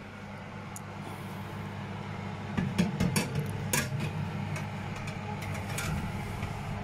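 Metal baking tray clattering against the oven's rack rails as it is slid in, a quick run of sharp knocks a little under three seconds in, over a steady low hum.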